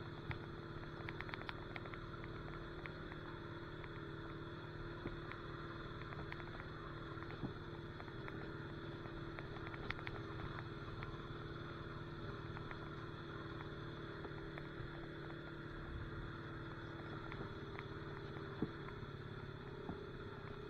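Honda Rancher four-wheeler's single-cylinder four-stroke engine running at a steady speed on a trail ride, with scattered light clicks and rattles.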